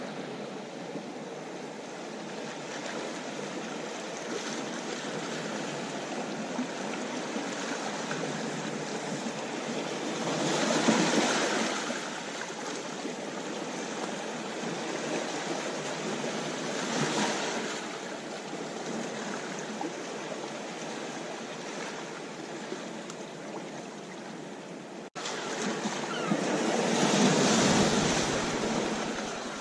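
Sea waves breaking and washing on a shore: a steady surf hiss, with a wave breaking louder about 11 seconds in, another about 17 seconds in, and the loudest, deepest one about 27 seconds in. The sound cuts out for an instant about 25 seconds in.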